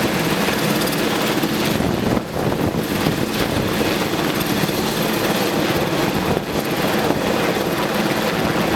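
Helicopter hovering during a tower-top lift, its rotor and turbine making a loud, steady noise.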